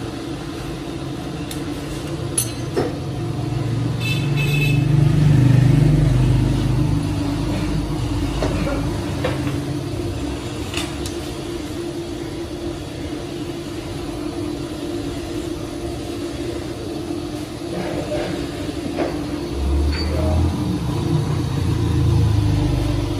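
Steady machine hum in a machine shop, with a deeper rumble that swells twice and a few sharp metallic clicks.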